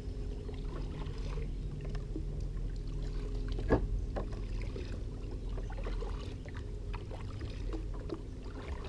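Kayak paddling: a double-bladed paddle dipping and pulling through the water stroke after stroke, with small splashes and drips. A single sharp knock stands out a little before the middle.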